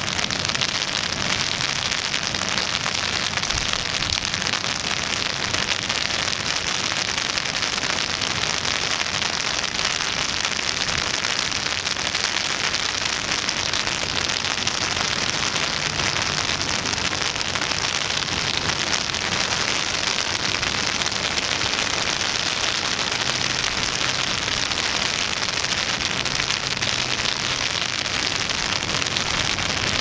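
Steady rain falling on wet pavement: an even, unbroken hiss.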